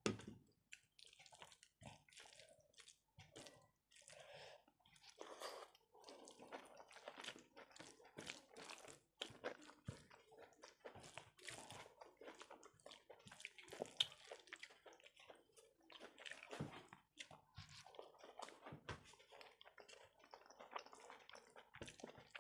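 Faint, close-miked hand-eating sounds: fingers squishing and mixing rice with cabbage chachchari on a plate, and chewing. A steady run of small wet clicks.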